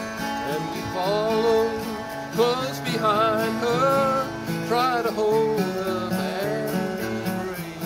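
Acoustic guitar and autoharp playing an instrumental break in a slow country gospel song. From about a second in, a bending, wavering melody line rises over the strummed chords.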